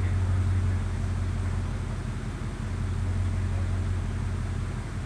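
2011 Ford Mustang GT's 5.0-litre V8 idling steadily through a Gibson performance exhaust, a deep, even low rumble.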